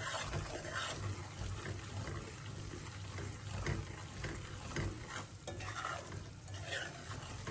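Spatula stirring and scraping semolina as it roasts in ghee in a metal kadai, with a low frying sizzle, in irregular strokes.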